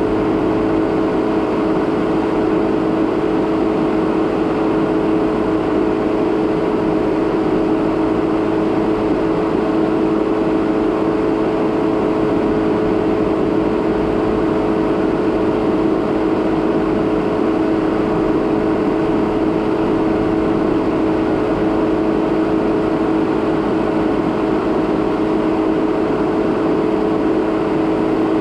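A 2017 Jeep Renegade Trailhawk driving at an even speed on a dirt road: a steady drone of constant pitch over a continuous rough road noise.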